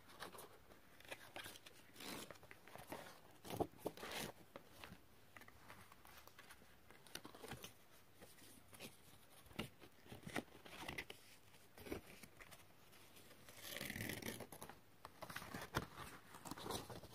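Faint rustling of card and string as twine is threaded through sheets of coloured card, with scattered small taps and a longer rustle near the end.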